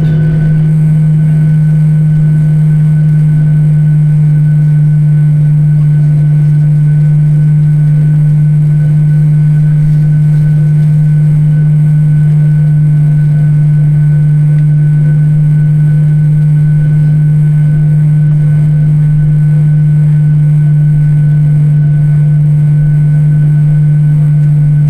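Jet airliner engine drone heard inside the cabin: a loud, steady low hum with fainter higher tones, unchanging in pitch.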